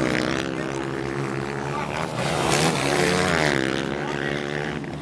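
Motocross motorcycle engines revving hard, their pitch climbing and falling again several times as the riders accelerate and shift; loudest a little past the middle.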